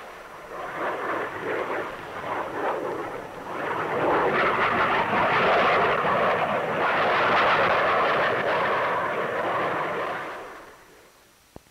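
Jet aircraft noise on the film soundtrack, a dense rushing roar that builds about three seconds in, holds loud for several seconds, then fades away near the end.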